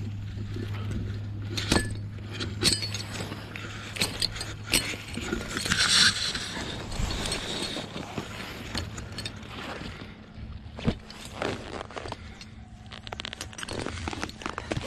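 Rustling and scraping of a paratrooper's clothing, equipment and parachute lines against tall grass, with scattered small clicks and clinks of metal hardware and a louder rustle about six seconds in. A low steady hum runs under the first half and then fades.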